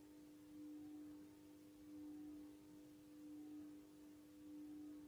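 A faint steady pure tone with a few fainter overtones above it, swelling and fading slowly about every second and a half.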